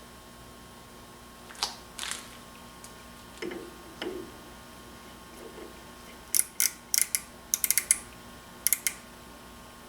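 Hand tools and metal parts being handled: a few soft knocks, then a quick run of sharp light clicks and taps about two thirds of the way in, over a faint steady hum.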